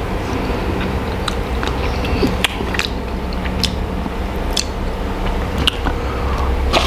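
Close-miked small handling noises: scattered light clicks and taps, about one every half second to second, over a steady low hum.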